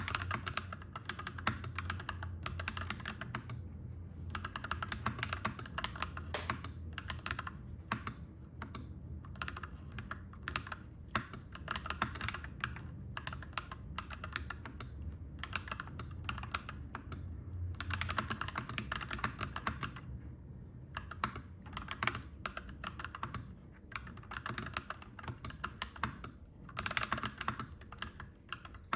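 Clacky mechanical keyboard being typed on in fast runs of keystrokes, broken by short pauses, over a steady low rumble.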